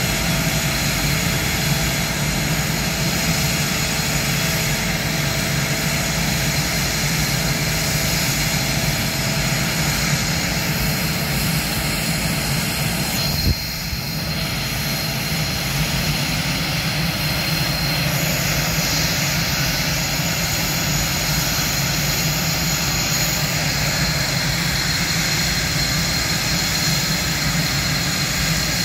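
Northrop F-5 jets' twin J85 turbojet engines idling on the ramp: a steady loud rumble and roar with a thin, high-pitched turbine whine held over it. A sharp click and a brief drop in level come about halfway through, then the engine sound carries on.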